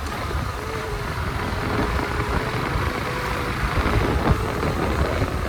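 Bajaj Pulsar AS 150 motorcycle being ridden: steady wind rumble on the microphone over the running engine.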